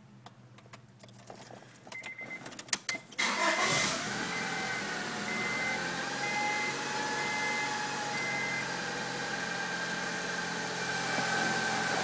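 Keys jingle and click in the ignition, then the 1995 Honda Accord's engine starts about three seconds in and settles into a steady idle with a loud, steady whine over it. The owner cannot find the source of the noise and has been told an over-tight timing belt or a bad tensioner could cause it. A warning chime beeps repeatedly for a few seconds around the start.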